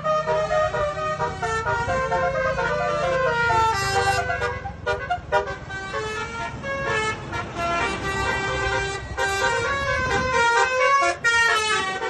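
Basuri multi-tone 'telolet' horn on a vehicle playing a melody of several notes sounding together that change every fraction of a second, with short breaks, over the steady rumble of the running engine.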